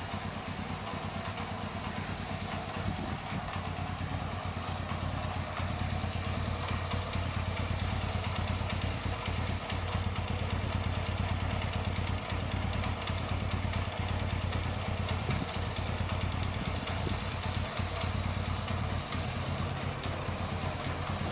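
Small single-cylinder four-stroke engine of an old Honda Wave-copy underbone motorcycle idling steadily, warm after a test ride, with a fine, fast ticking clatter from the valve train.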